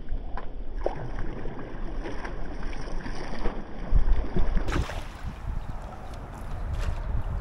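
Wind rumbling on the microphone over a noisy outdoor background from a kayak on the water, with a few light knocks and clicks.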